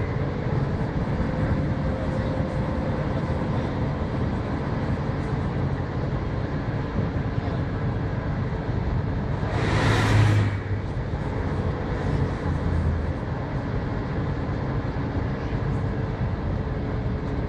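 Volvo B7R coach heard from inside the cabin while driving: the six-cylinder diesel's steady drone and road noise with a faint steady whine. About ten seconds in, a brief rush of noise rises and falls away.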